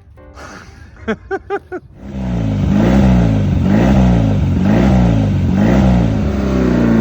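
Motorcycle engine starting about two seconds in and being revved up and down about four times, then settling to a steady fast idle, on a test run after its oil return pump was got working again. A few short chirping sounds come just before it starts.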